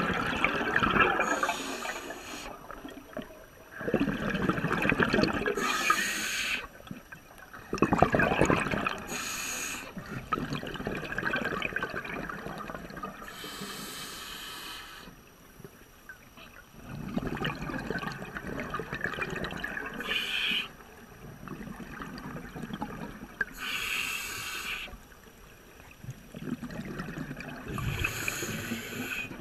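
Scuba diver breathing through a regulator underwater: a short hiss on each breath in, then a rush of bubbles on each breath out, repeating about every four to five seconds.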